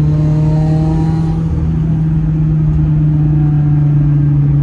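Subaru WRX's FA20 turbocharged flat-four engine and road noise droning steadily while driving, heard from inside the car. The engine is running without the cylinder 4 misfire now that the faulty direct injector has been replaced.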